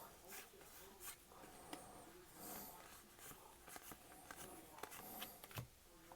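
Faint scattered clicks and soft scraping of trading cards being handled and slid across one another while a pack is flipped through.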